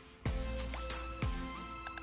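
Background music: held notes that step in pitch over a soft low beat about once a second.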